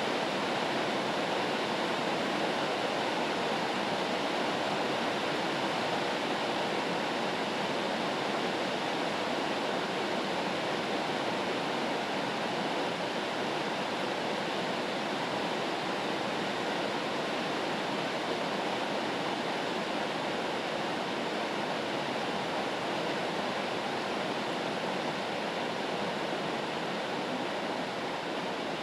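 Steady rain white noise: an even, unbroken hiss with no single drops, thunder or pauses.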